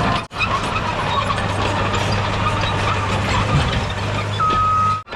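Heavy diesel construction machine running steadily, with a constant low hum and light clattering, heard close up. A single steady beep sounds briefly near the end.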